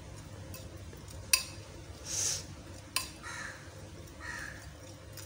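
A spoon stirring chicken pieces coated in spices and sauces in a glass bowl: soft wet scraping swishes, with two sharp clicks of the spoon against the glass, about a second and a half in and again about three seconds in.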